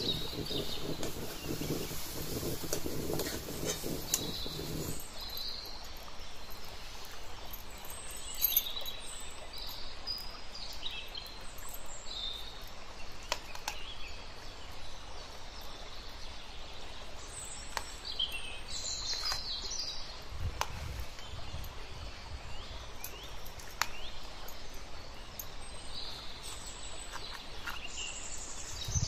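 Birds chirping on and off over steady outdoor background noise. For the first five seconds a low steady rumble comes from the wok of water boiling over the wood fire, then stops abruptly. Later there are a few faint clicks of a knife touching a steel plate.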